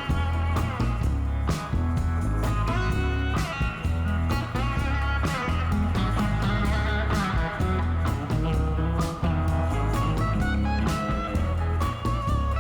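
Background music: blues-rock with electric guitar, a heavy bass line and a steady beat.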